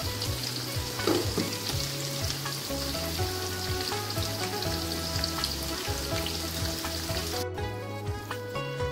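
Onions and sliced potatoes sizzling as they fry in an aluminium pot, stirred with a wooden spoon that clicks against the pot now and then. The sizzle cuts off suddenly near the end.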